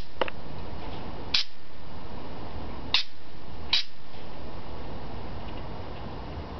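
Budgerigar giving a handful of very short, sharp chirps, a few seconds apart, over a steady background hiss.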